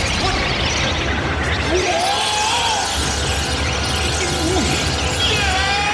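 Cartoon soundtrack: a dense, clattering din of action sound effects under music, with warbling tones that rise and fall.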